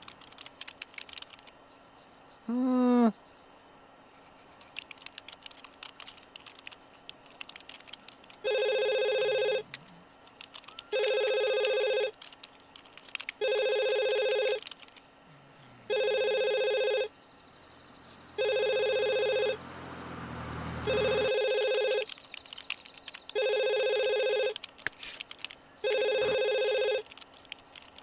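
A woman sneezes once, loudly, about three seconds in, her voice rising in pitch before it cuts off. From about eight seconds in, a telephone rings in regular electronic pulses, each about a second long, repeating every two and a half seconds.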